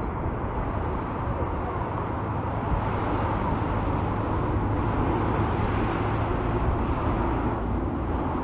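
Boeing 747-400 freighter taxiing, its four turbofan engines running steadily at low thrust.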